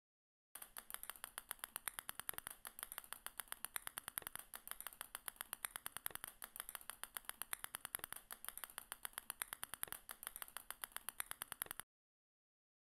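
Rapid stream of small sharp clicks, about eight a second: a sound effect of small balls dropping one by one onto a growing pile. It starts about half a second in and stops abruptly near the end.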